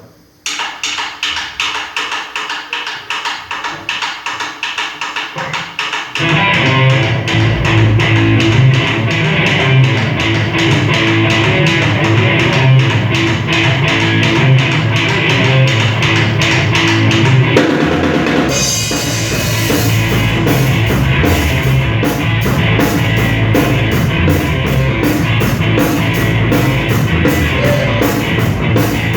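A rock band playing. A guitar plays alone for about the first six seconds, then drums and bass come in and the full band plays on.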